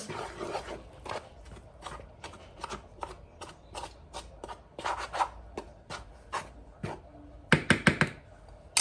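Hands mixing and rubbing dry ingredients for chin chin dough in a bowl: a run of short, irregular scuffing and rubbing sounds, with four sharper, louder strokes in quick succession near the end.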